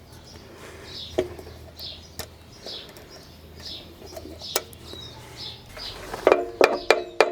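A bird chirps over and over, short falling notes about every second, with a few light clicks and taps. About six seconds in, a run of loud, sharp metal-on-metal strikes begins, about three a second, each one ringing.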